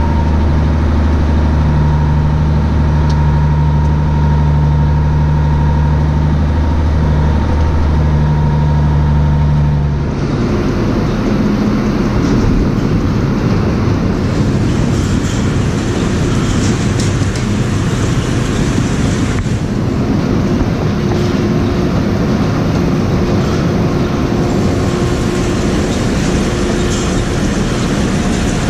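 An engine runs steadily. About ten seconds in, this gives way abruptly to a continuous, loud mechanical rattling and clattering.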